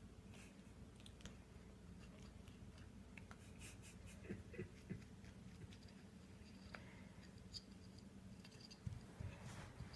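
Faint scratching and rustling of a kitten pawing on carpet and batting at a yo-yo string, with a few light clicks over a low steady hum.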